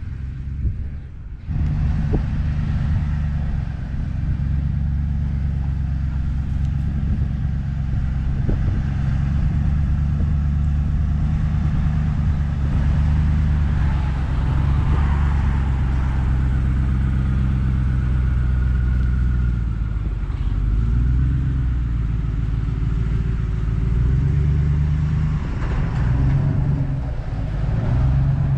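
Pickup truck engine running at low speed while towing a loaded trailer, a steady low drone whose pitch shifts a few times in the last third as the engine speed changes.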